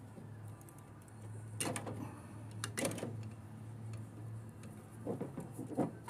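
Metal rattling, scraping and knocking as a gas furnace's burner assembly and gas valve are worked loose and pulled out of the cabinet. It comes in three short bouts, the loudest near the end, over a steady low hum.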